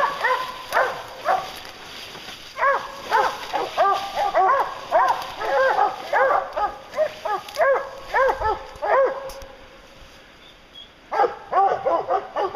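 Bear hounds baying at a black bear treed above them, in a rapid run of short barks with several dogs overlapping. This is the tree bay that marks a bear held up a tree. The barking breaks off about nine seconds in and starts again near the end.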